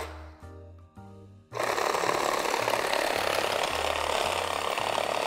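Cordless reciprocating saw starting up about a second and a half in and cutting steadily through the metal housing of an i2000 ice-machine water filter canister.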